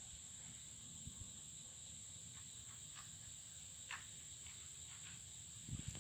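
Quiet outdoor ambience: insects droning steadily at a high pitch, with a few faint light clicks and a couple of soft thumps near the end.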